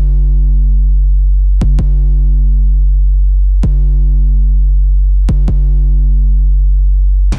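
Electronic background music: a deep synthesizer bass note held throughout, with sharp drum-machine hits in a slow pattern of a close pair, a single hit, then another close pair.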